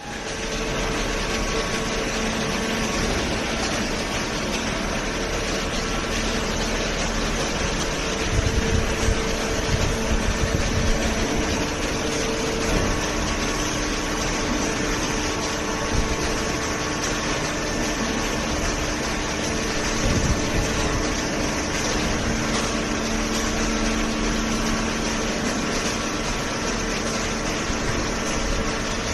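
Hydraulic waste paper baler running: a steady machine noise with a hum from its hydraulic pump and motor, and a few low knocks about eight to eleven seconds in.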